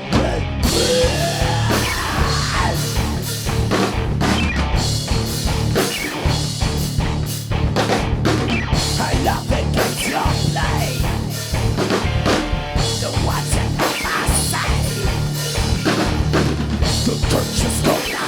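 Instrumental heavy rock music: loud drum kit beating steadily under distorted guitar and bass, with no vocals.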